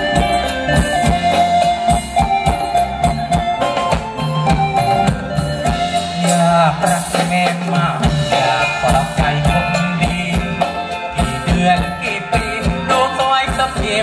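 Live band playing upbeat Thai ramwong dance music over the stage speakers, with a steady drum beat under electric guitar and keyboard.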